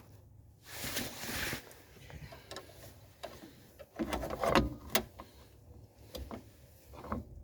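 Tools and drum-brake parts being handled: a brief rustling scrape about a second in, then scattered clicks and knocks, loudest in a cluster around four to five seconds in.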